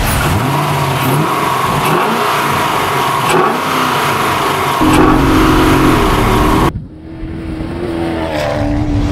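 Dakar off-road racing car's 6.2-litre LS3 small-block V8 revving hard under acceleration, its pitch rising and falling with the throttle and gear changes. The sound cuts off abruptly about two-thirds through and picks up again with more engine running.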